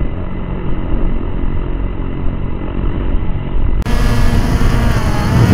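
Quadcopter drone's propellers and motors humming steadily, heard from the camera on board. About 4 s in the sound cuts to a brighter tone whose pitch wavers up and down.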